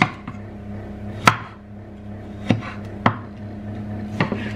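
Kitchen knife slicing a tomato on a chopping board: five sharp knocks of the blade meeting the board, spaced unevenly about a second apart.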